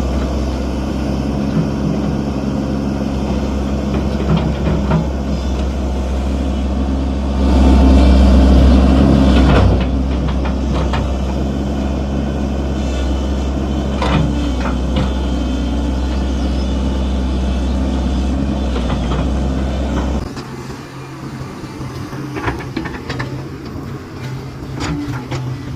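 Hitachi excavator's diesel engine running steadily, louder for about two seconds partway through as it works, with scattered knocks and clanks. About 20 seconds in the sound drops suddenly to a quieter, different engine hum.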